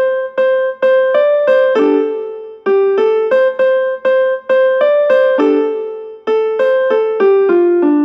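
A phone ringtone melody in a piano-like sound: a simple tune of single struck notes that ring and fade, with short pauses between phrases.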